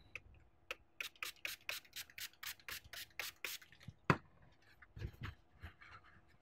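Hand-pump spray bottle of isopropyl alcohol spritzed about a dozen times in quick succession, roughly four sprays a second, onto a copper water block. A single thump follows, then a cloth rubbing over the block as it is wiped down.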